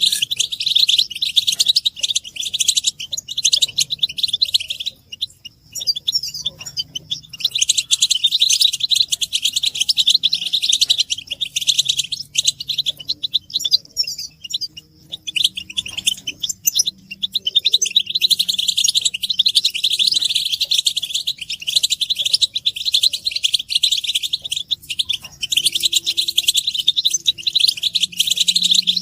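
European goldfinches twittering in a dense group chatter: a rapid, unbroken stream of high chirping calls, the excited calls used to stir male goldfinches into song.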